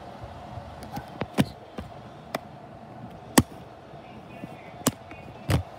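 Bumps and knocks of a handheld phone being moved about and rubbed against cloth, half a dozen sharp taps on its microphone, the loudest about three and a half seconds in, over a steady faint hum.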